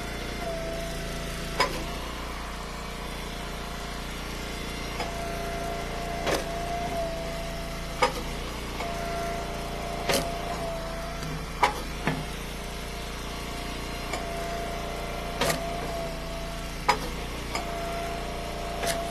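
Eastonmade Ultra hydraulic wood splitter running steadily, with a pitched whine that comes and goes as the splitter cycles. About nine sharp cracks are spread through it, from firewood rounds splitting and pieces dropping.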